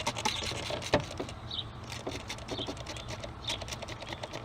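Water being squirted onto a corroded car battery terminal, with irregular small clicks and patter and one sharper click about a second in.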